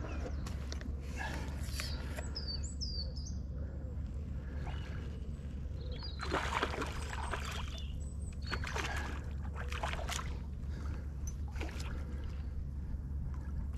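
Fly line being slowly stripped in by hand, with the rustle and scuff of line, basket and sleeve close to the microphone over a steady low rumble. A bird chirps a few times about three seconds in.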